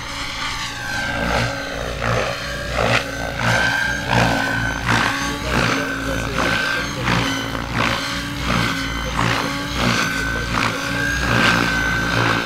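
Electric Goblin Kraken 700 RC helicopter flying 3D aerobatics: its main rotor blades swoosh in rapid, rhythmic bursts, about two a second, as the pitch is pumped, over a steady high whine from the drivetrain.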